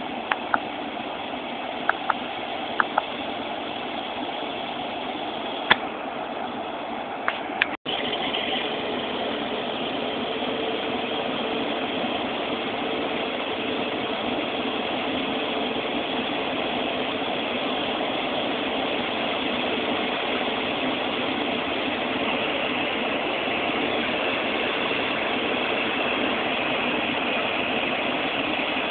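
Airbus A380's jet engines running at a distance, a steady hum with a faint steady whine that comes in about ten seconds in. A few short sharp clicks sound in the first eight seconds, and the sound cuts out for an instant about eight seconds in.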